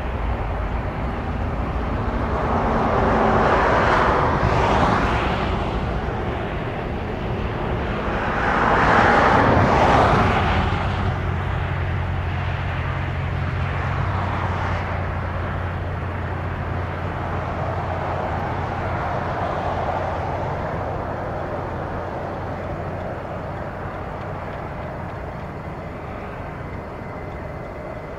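Vehicle and aircraft engine noise at an airport. There are two passing swells, about four and nine seconds in, and then a steady low engine hum that slowly fades.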